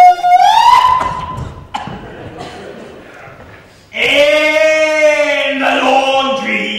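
A performer's voice holding a high, shrill note that slides up and stops about a second in. After a quieter stretch, a loud, drawn-out vocal note starts about four seconds in, its pitch sliding slowly down.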